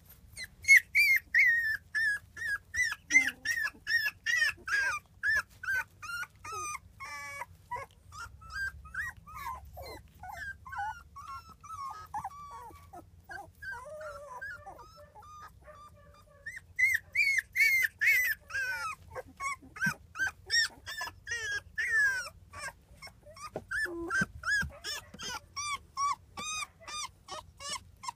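Seventeen-day-old rough collie puppies crying: a long series of short, high-pitched whimpering yelps, about two or three a second. The calls are loud at first, weaker for several seconds in the middle, and loud again over the second half.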